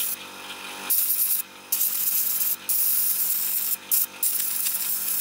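Airbrush gun blowing air onto a small N-scale model-train wheelset to dry it after cleaning: a hiss of air in a few long blasts with brief breaks, starting about a second in.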